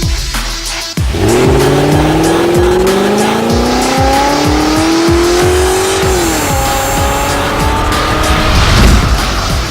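Intro music with a heavy, evenly spaced beat, over which a car engine revs. It sets in about a second in, climbs slowly in pitch, then drops away at about six seconds, followed by shorter revs.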